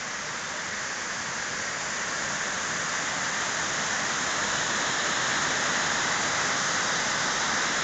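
Waterfall: a steady rush of falling water, growing gradually louder.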